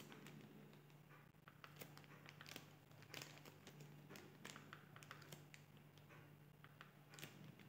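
Near silence: a faint steady low hum with scattered soft clicks and rustles.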